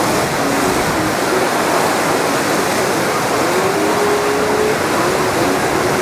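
Whitewater rapids of a theme-park raft ride channel, water rushing and churning over rocks in a steady, loud roar of noise.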